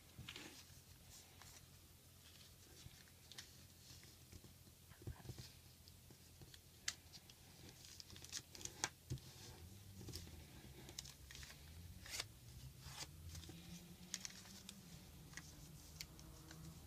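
Paper being folded and creased by hand: quiet rustling with scattered crisp crackles and clicks as the folds are pressed flat.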